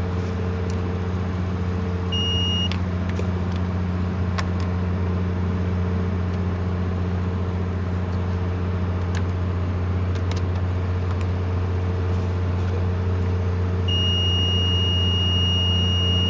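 A steady low drone from an idling engine, with a short high electronic beep about two seconds in and a longer one near the end, and a few light clicks.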